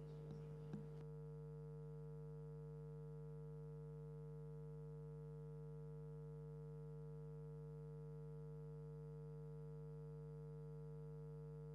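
Steady low electrical mains hum in the sound system, with a couple of faint knocks in the first second and then only the hum.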